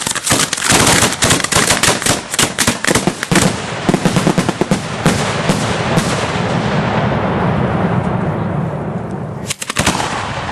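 Hand-fired display fireworks going off: a rapid volley of sharp cracks, many a second, for about six seconds, running into a continuous crackling hiss. Another quick cluster of cracks comes near the end.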